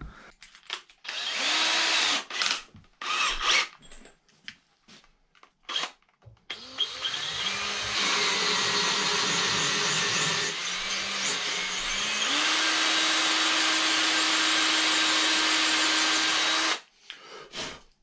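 Ryobi 18-volt cordless drill drilling into a brass part clamped in a vise. It runs briefly about a second in, with a few clicks and knocks after, then runs steadily from about six seconds in. Its motor pitch steps up around halfway through and it stops near the end.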